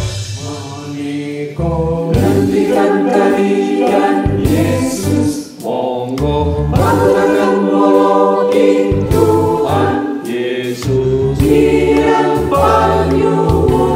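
Mixed choir of men's and women's voices singing a hymn in phrases.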